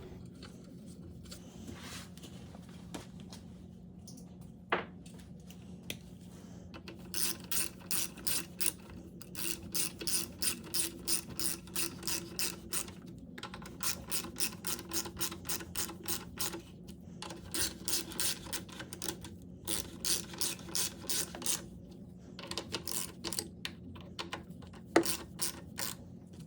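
Ratchet wrench clicking in quick runs with short pauses, starting about seven seconds in, as bolts are driven back in to refasten the air filter box and engine cover plastics. A faint steady hum runs underneath, and there are a couple of single knocks.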